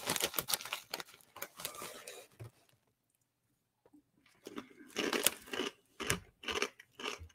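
Plastic snack bag rustling as a hand reaches in, then, after a short pause, dry uncooked ramen noodles crunching as they are chewed.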